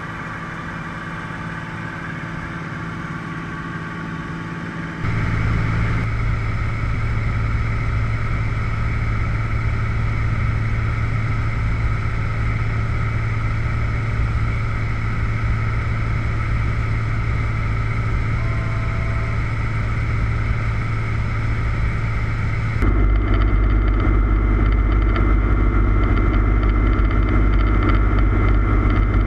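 Steady cabin drone of a Cessna 182T's six-cylinder Lycoming IO-540 engine and propeller in flight. The level jumps up suddenly about five seconds in, and again about three-quarters of the way through.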